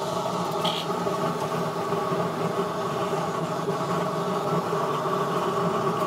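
Small electric air blower running steadily, driving air through a steel pipe into a forced-air burner fire. It is a constant motor hum and whirr, with no change in speed.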